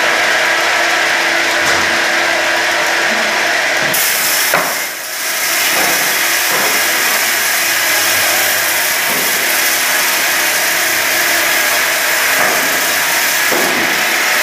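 Multi-blade rip saw, a row of circular blades on one shaft, running loud and steady as it cuts wood fed in on its conveyor, with a steady motor hum underneath. There is a short knock about four and a half seconds in, then a brief dip in the noise.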